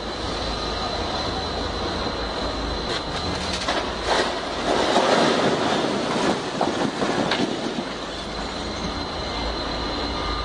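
Stacked plastic crates of glass bottles toppling and crashing to a concrete floor, with glass clattering and smashing. It is loudest about four to six seconds in, with a few sharp knocks, over a steady high tone.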